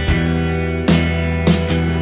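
Background music: a guitar-led track with held notes and drum hits.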